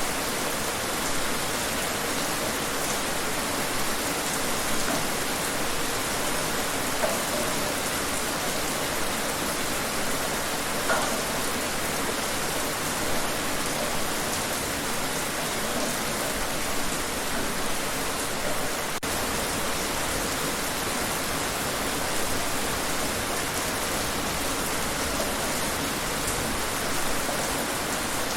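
Steady rain falling outdoors, an even hiss with light patter of drops.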